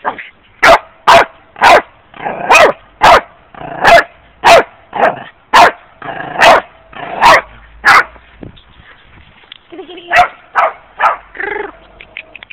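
Dog barking excitedly, about two sharp barks a second for roughly eight seconds, then after a short pause a few weaker barks and yips near the end.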